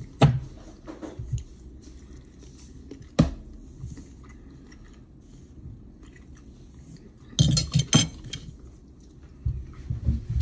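A metal fork clinking and scraping on a ceramic plate: sharp clinks near the start and about three seconds in, a quick cluster of clinks about seven and a half seconds in, and another near the end as the fork is set down. Chewing is heard between the clinks.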